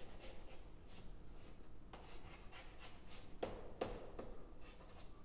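Chalk writing on a blackboard: a series of short scratching strokes and a few sharper taps with brief pauses between them.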